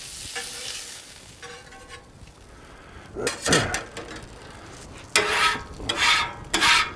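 Venison sausage patties sizzling on a Blackstone flat-top griddle, then a metal spatula scraping across the steel griddle top in several separate strokes from about three seconds in, as the patties are moved.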